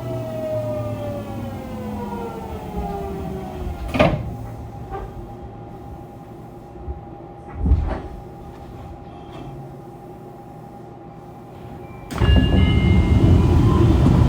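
Fukuoka City Subway 2000 series Hitachi GTO-VVVF inverter whining and falling in pitch as the train brakes into a station. The whine dies away with a sharp click about four seconds in, a steady hum and a thump follow, and near the end a loud rush of noise sets in as the train stands and its doors open.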